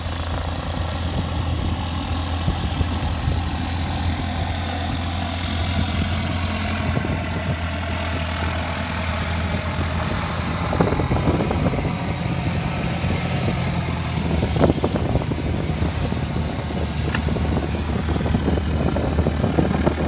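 Light single-engine propeller aircraft taxiing past, its piston engine and propeller running at low taxi power as a steady drone with a constant low hum.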